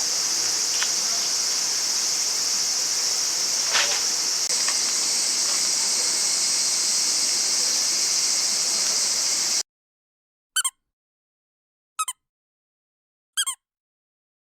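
Crickets chirring steadily, with a faint click about four seconds in. Nearly ten seconds in the sound cuts off to dead silence, broken by three short sweeping chirps about a second and a half apart.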